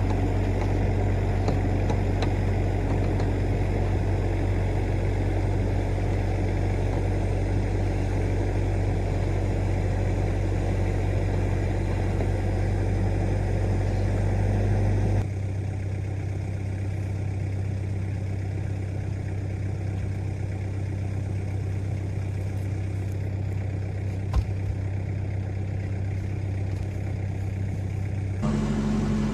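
Bobcat E26 mini excavator's diesel engine running steadily with a deep hum. About halfway through it drops abruptly to a quieter level and comes back up near the end; there is one sharp click a few seconds before the end.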